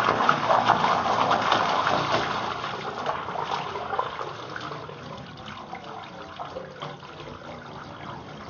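Sump pump just plugged in and pumping water from a primed pit, heard as a gush of rushing water that is loudest at first and eases to a lower steady flow after about four seconds.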